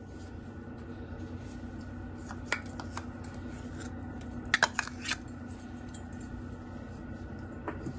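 Light clicks and taps of a measuring spoon and spice container handled over a mixing bowl. There are a few scattered ones, with a sharper pair about halfway, over a steady low hum.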